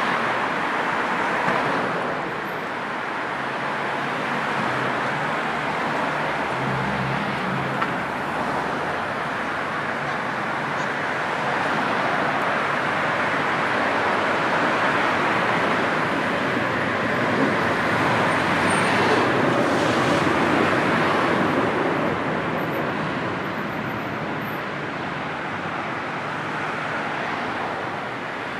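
Road traffic in a slow-moving motorway jam: a steady wash of engine and tyre noise. A low engine hum stands out about seven seconds in, and a vehicle passing close swells louder about two-thirds of the way through.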